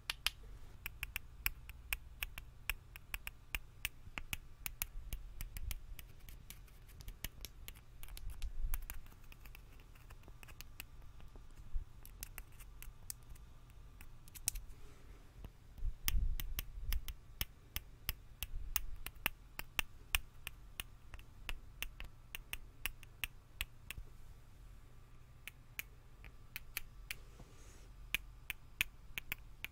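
Close-miked clicking, tapping and light scraping of a metal flashlight being handled and taken apart, its tube, screw-on head and batteries knocking together. Soft low bumps come in now and then, the strongest about halfway through.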